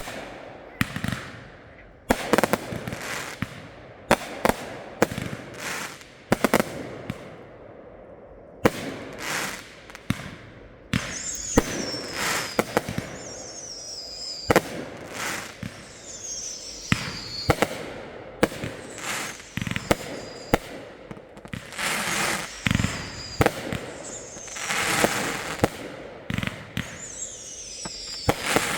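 Consumer fireworks going off in quick succession: sharp bangs with crackling between them. From about a third of the way in, several high whistles fall in pitch among the bangs.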